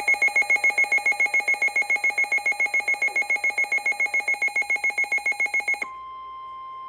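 Electronic weather-alert alarm beeping rapidly and loudly, about eight beeps a second. It cuts off about six seconds in, and a quieter steady tone follows: the 1050 Hz NOAA Weather Radio warning alarm tone that comes before a warning message.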